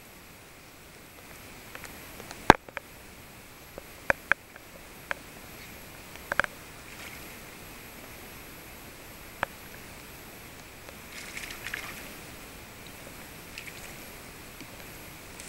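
Steady rush of stream water with scattered sharp clicks and knocks, about six over the first ten seconds, from the spinning rod and reel being handled while a hooked trout is played in.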